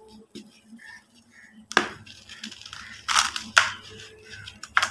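Hands crushing lumps of dry cement and white concrete mix into powder, with four sharp crunches, the first nearly two seconds in, and crumbs and dust trickling down between them.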